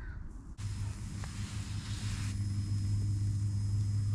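Portable camping gas stove burning under a pan of frying bread: a steady low burner hum with a sizzling hiss, setting in suddenly about half a second in.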